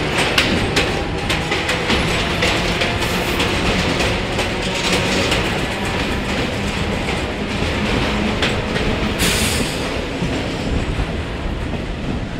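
Mumbai DC EMU suburban train running, heard through its open doorway: wheels clattering over rail joints in quick clicks over a steady rumble, with another EMU local passing close alongside during the first half. A brief rush of hissing noise comes about nine seconds in.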